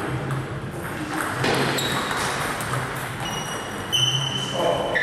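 Table tennis rally: the plastic ball knocking back and forth off the rubber bats and the table, with a few short high squeaks around three to four seconds in.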